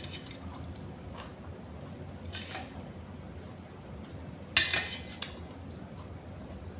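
Utensils knocking against dishware, two short clinks: a lighter one about two and a half seconds in and a louder one about four and a half seconds in.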